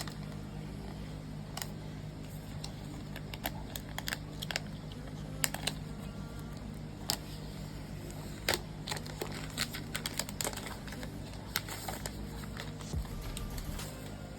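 Protective plastic film being peeled and pulled off a new tablet: irregular sharp crackles and clicks of the plastic, a few at a time with short pauses between.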